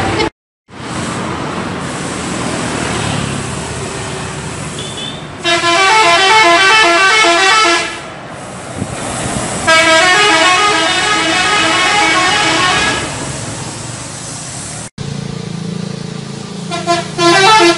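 Bus 'telolet' musical air horn playing its quick multi-note tune, twice for about two to three seconds each, with steady background noise between. A few short horn toots come near the end.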